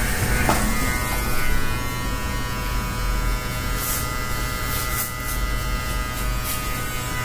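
Handheld electric hair clipper buzzing steadily as it is run over a freshly shaved scalp, taking the head down to the skin.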